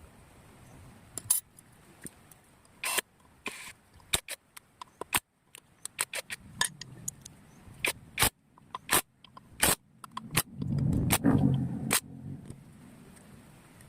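Metal tools and engine parts of a Binter Merzy motorcycle engine clinking and knocking in irregular sharp taps during assembly. A louder rattling scrape lasts about a second and a half, a little past the middle.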